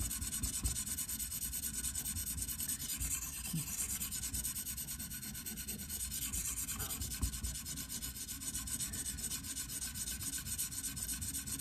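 Worn 300-grit diamond stone on a KME guided sharpening rod, stroked rapidly back and forth along the edge of an AUS-10 steel knife blade: a steady, even scratching of the grit on the steel while he grinds the apex to raise a burr.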